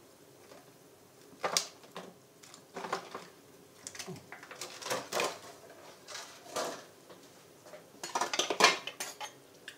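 Kitchen clatter of dishes and a pot: scattered clinks and knocks, with a quick run of them near the end, as fresh filled pasta is added to a pot of boiling water.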